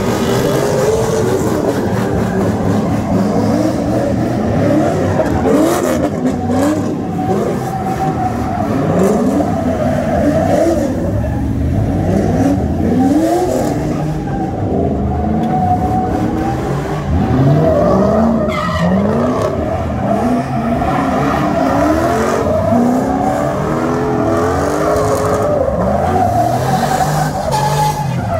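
Car engines revving hard over and over in rising sweeps, every second or two, while tyres spin and screech on asphalt: a Chevrolet Silverado pickup and a sedan doing burnouts and donuts.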